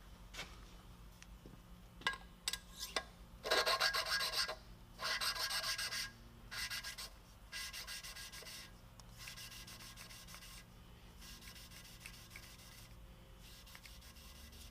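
Valve in a Cummins 12-valve diesel cylinder head being hand-lapped into its seat with coarse lapping compound: gritty rasping strokes in bursts, loudest a few seconds in and fainter after, with a few clicks before them.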